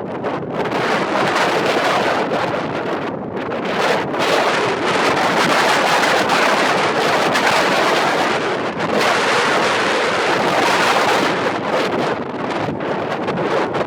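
Strong wind buffeting the microphone near a tornado-producing supercell thunderstorm: a loud, steady rush that swells and eases in gusts.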